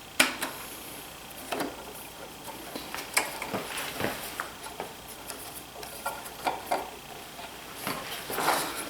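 Irregular light clicks and knocks of hand work on a DeWalt 735 planer as its drive belt is fitted back on, with a denser run of knocks near the end.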